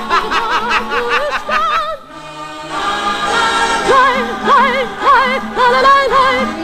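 Music with singing: a sung melody with heavy vibrato over instrumental accompaniment. It drops away briefly about two seconds in, then the singing starts again.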